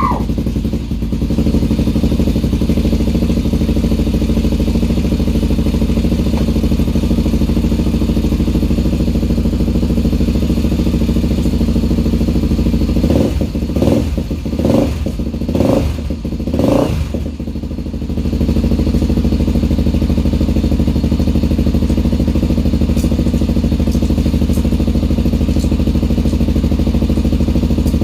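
Honda 400EX's single-cylinder four-stroke engine idling steadily on its first start after a rebuild. About halfway through, the throttle is blipped several times in quick succession, the revs rising and falling with each one, before it settles back to idle.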